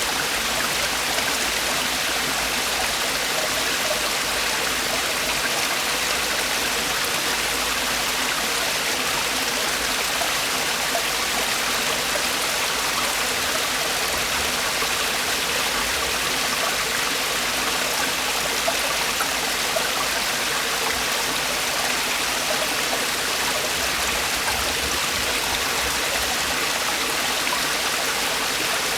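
Mountain valley stream with water falling over rocks: a steady, even rush of splashing and gurgling water.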